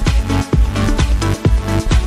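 Electronic dance music with a steady, fast beat.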